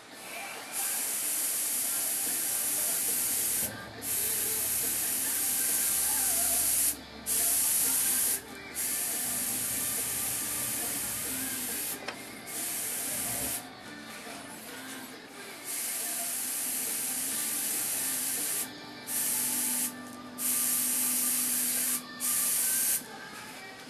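An airbrush spraying paint in a series of high hissing bursts, each one to three seconds long, with short breaks between them.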